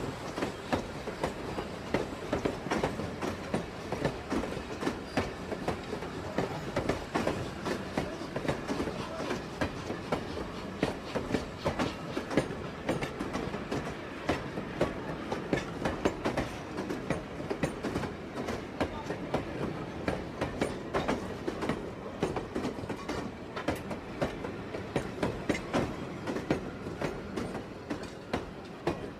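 Steam train departing, its wheels clattering in a dense, continuous run of clicks and knocks; the level eases a little near the end.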